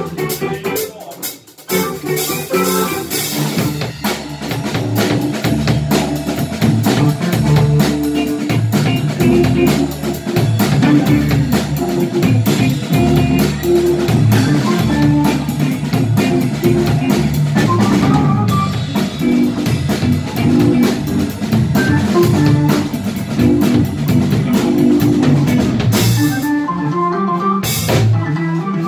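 Live acid-jazz band playing an instrumental: Hammond organ, electric bass, drum kit and electric guitar, with the drums to the fore. The music drops out briefly about a second and a half in and breaks into short stop-time hits near the end.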